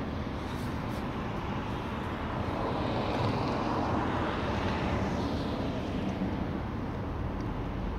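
A vehicle passing at a distance: a steady rumble that swells over a few seconds in the middle and fades again.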